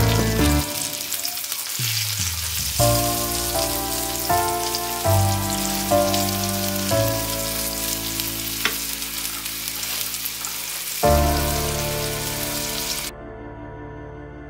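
Pork chops in an egg-and-flour coating sizzling as they fry in hot oil in a pan, under sustained background music notes. The sizzling cuts off suddenly near the end, leaving only the music.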